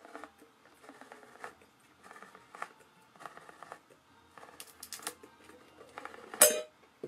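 Handheld crank can opener cutting around the rim of a sealed metal tin, in a series of short rasping strokes a bit over half a second apart. About six seconds in comes one louder, shrill burst.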